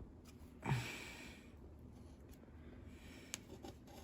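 A person's short breathy snort or exhale a little under a second in, fading within a second, then low room noise with a small click near the end.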